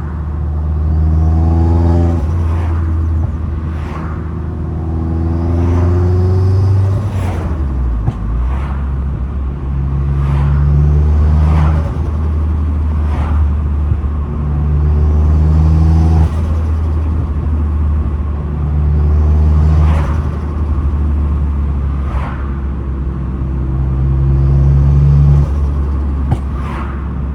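Vauxhall Astra H VXR's turbocharged 2.0-litre four-cylinder engine revving up about six times, each rev rising and then dropping with a short sharp chatter as the throttle shuts: the turbo flutter of compressor surge on lift-off.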